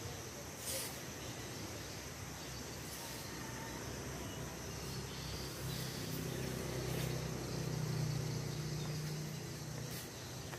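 Outdoor ambience: a low engine hum from a passing vehicle swells to its loudest about eight seconds in, then fades, over a steady hiss of insects. There are a couple of faint knocks.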